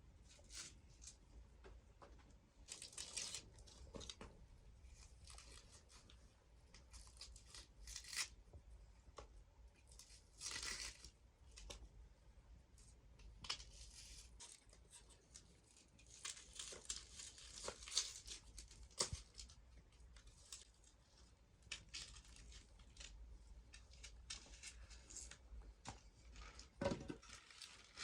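Quiet, irregular rustling and scraping with scattered small clicks: close-up hand-handling noises, with no speech.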